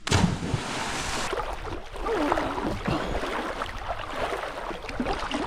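A sudden big splash as someone drops into a swimming hole, followed by churning, splashing water. Voices call out faintly over it a couple of seconds in.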